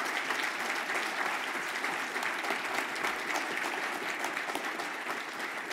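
Audience applauding: many hands clapping at a steady level, slowly fading toward the end.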